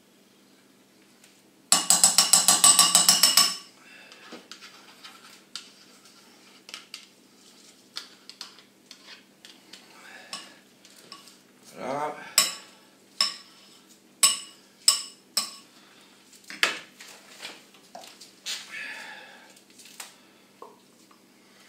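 A metal fork scraping Greek yogurt out of a small plastic pot into a ceramic bowl. About two seconds in there is a loud quick rattle of some fifteen taps. Scattered scrapes follow, then several sharp ringing clinks of the fork against the bowl and pot.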